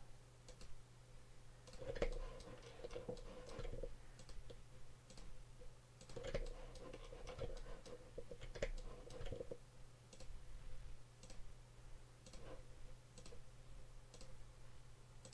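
Faint, irregular computer mouse clicks as edges are picked one after another, over a steady low electrical hum.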